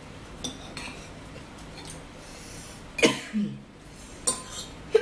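A person coughing twice, about three seconds in and again at the end, over light clinks of spoons against bowls.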